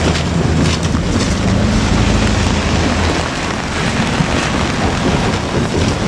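JR Kyushu KiHa 47 diesel railcar running away, its low diesel engine hum fading out about three seconds in, under a steady hiss of rain.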